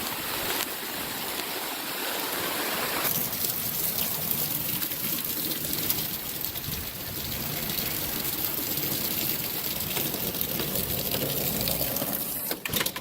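Heavy rain and gusting storm wind, a steady hiss of noise. Near the end there are a few sharp clicks and then the sound drops away suddenly.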